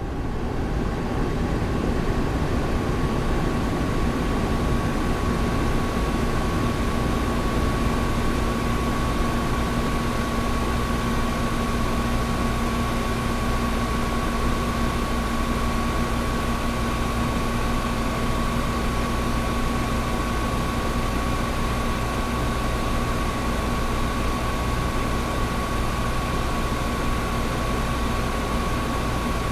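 Old window air conditioner running steadily: a rush of fan air over a deep hum, with two steady tones, one low and one higher, held without change.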